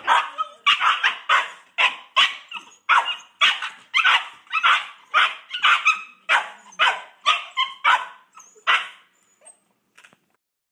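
Boxer puppies barking in a squabble over a pig ear chew: a steady run of short, sharp barks, about two or three a second, fading out and stopping about nine to ten seconds in.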